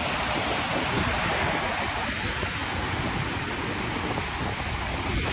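Ocean surf breaking and washing in the shallows as a steady rush, with wind buffeting the microphone in an uneven low rumble.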